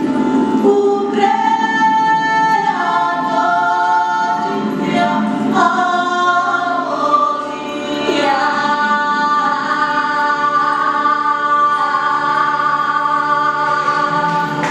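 Recorded folk song: several women's voices singing long held notes in close harmony, the pitches stepping and sliding between notes, with little instrumental backing.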